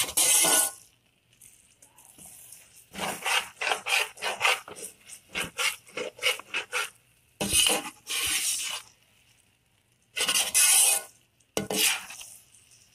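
A spatula scraping and stirring through rice in a steel pot, in irregular runs of quick strokes with short pauses between. This is milk being mixed through the par-cooked pulao rice.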